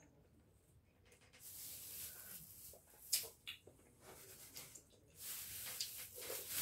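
A person eating with his hand close to the microphone: two hissing breaths drawn through the mouth, with a couple of sharp mouth clicks between them.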